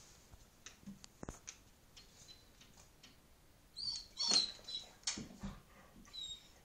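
Chesapeake Bay Retriever whining in short high-pitched whimpers, loudest about four to five seconds in, with another brief whine near the end. A few light knocks come about a second in.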